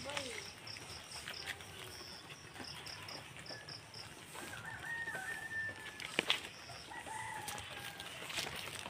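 A rooster crowing, one held call about halfway through, followed by a shorter call a second or so later. In the first few seconds there is a quick run of high chirps, about three a second, and there is one sharp click just after the crow.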